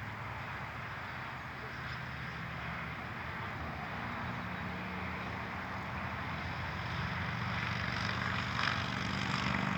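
A steady low engine drone under a broad hiss, growing slightly louder over the second half.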